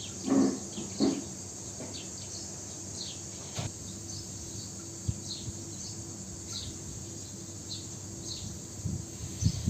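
Steady high-pitched insect drone with short bird chirps repeating about once a second; two brief louder sounds in the first second.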